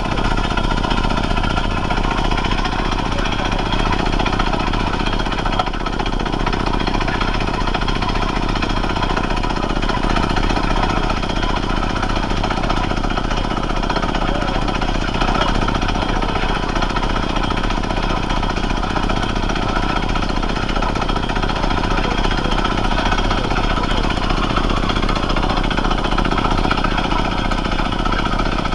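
Horizontal hydraulic-and-pneumatic quarry drilling machine drilling into rock, its pneumatic drill hammering steadily and unbroken.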